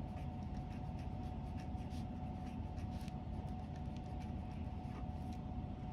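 Felt-tip pen writing on a paper workbook page: faint short scratching strokes, over a steady low hum with a thin steady tone.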